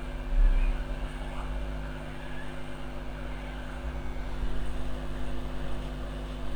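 Hot air rework gun blowing steadily over a phone circuit board, heating the solder balls under the CPU so the chip can be lifted, over a constant low electrical hum. A brief low thump about half a second in.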